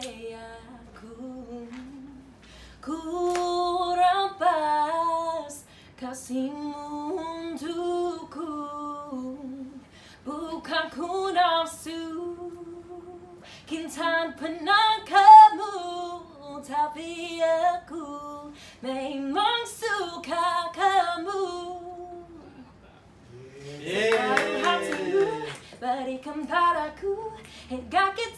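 A woman singing unaccompanied, in phrases with a wavering vibrato and short pauses between them.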